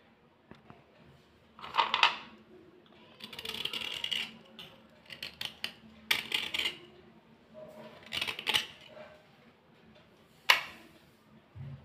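Thick white slate pencils being handled: dry clicks and clatters as the pencils knock together on a plastic tray, mixed with short scraping rubs. The sharpest click comes about ten and a half seconds in.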